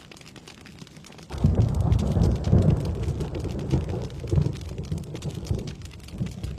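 Steady rainfall patters with many small drop ticks. About a second in, a thunderclap breaks in and rolls on as a low, uneven rumble for some five seconds, slowly fading.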